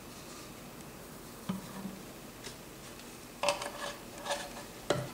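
A few light clicks and clinks as a plastic brake-fluid bottle is capped and set down on a workbench. The loudest, slightly ringing clinks come about three and a half seconds in, and there is a sharp click near the end.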